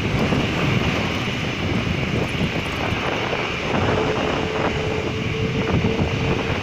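Jet engines of a Philippine Airlines Airbus wide-body airliner at takeoff power during its takeoff roll: a loud, steady rumbling noise, joined by a steady tone about four seconds in.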